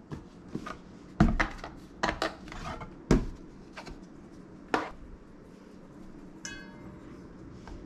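Kitchen handling noises: a plastic food container and a stainless-steel mixing bowl knocked and set down on a wooden cutting board, with a spoon clattering. About five sharp knocks, then a short ringing tone near the end.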